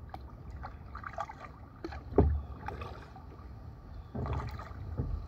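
Kayak paddling: a double-bladed paddle dipping and pulling through river water, with drips and light splashes and a low thump about two seconds in.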